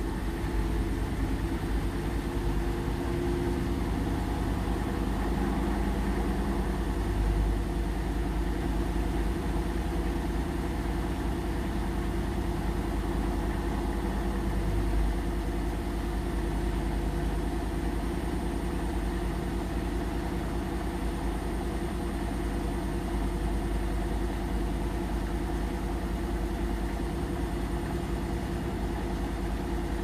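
Hotpoint NSWR843C 8 kg front-loading washing machine on its spin, the drum turning at speed with the laundry pinned to its wall: a steady motor hum over a low drum rumble.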